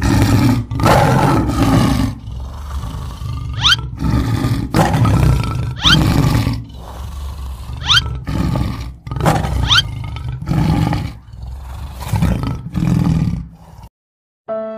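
Recorded lion roars used as a sound effect: a series of low, heavy roars about every two seconds, with a short, sharp rising squeal cutting in four times. The roars stop just before the end, and music begins.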